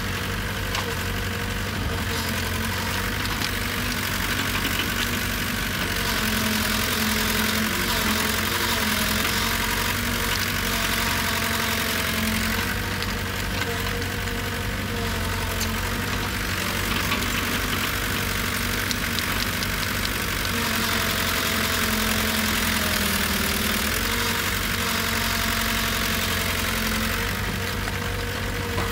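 Diesel engine of an earthmoving machine running steadily, a low, even hum with a constant hiss above it.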